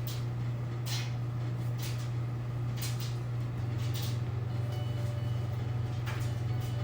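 A steady low hum runs throughout, with a few soft taps.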